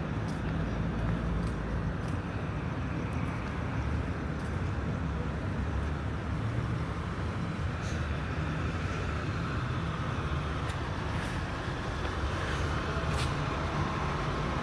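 Steady outdoor city background noise with a low rumble, broken by a few light clicks.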